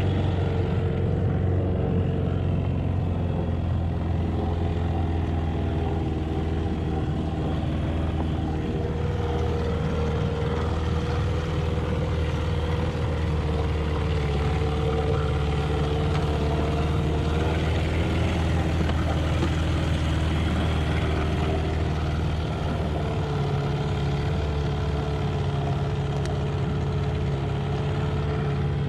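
A 20 hp Evinrude two-stroke outboard idling steadily at the dock. The owner says this motor has only 30 psi of compression. The idle note shifts a little over two-thirds of the way through.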